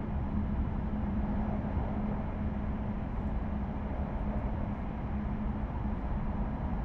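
JR East E5 Shinkansen running through the Seikan Tunnel at its 160 km/h limit: a steady rumble with a low, even hum and a few faint ticks.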